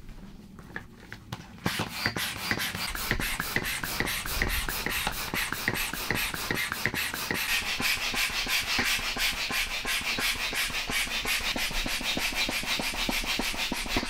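Air mattress being inflated with an air pump through a hose: rapid, even puffs of air, about five a second, starting about two seconds in.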